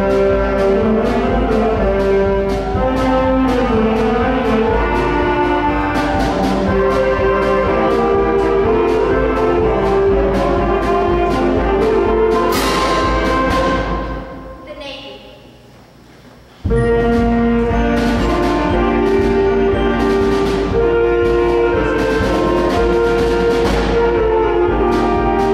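School concert band playing a march: brass over bass drum and clashed hand cymbals. About 12 seconds in a cymbal crash closes a phrase and the sound dies away, then the band comes back in abruptly a few seconds later.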